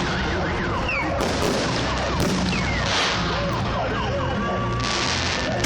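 Festive fireworks salute: hissing crackle bursts and many whistling, gliding shell sounds over a steady din, with a held whistle-like tone near the end.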